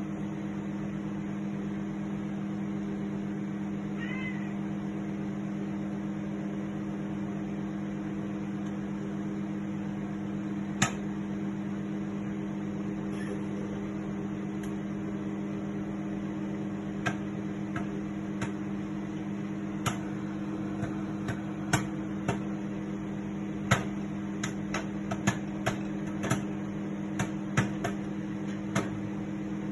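DEXP MR-81 microwave oven running with a steady hum. From about halfway through, sharp pops from inside the oven come more and more often. A brief high-pitched rising call is heard about four seconds in.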